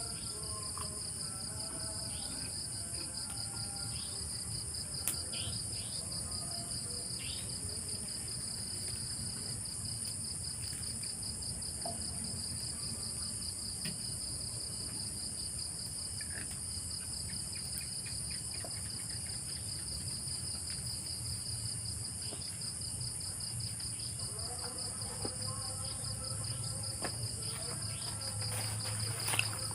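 Insects trilling steadily in a dense chorus, a continuous rapid high-pitched trill at two pitches.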